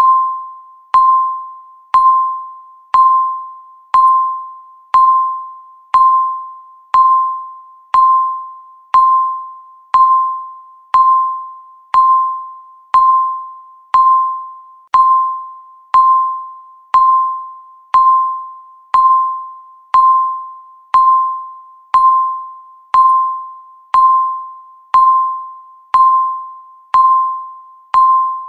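Countdown timer beeping once a second: a single mid-pitched electronic beep that starts sharply and fades away before the next, evenly repeated.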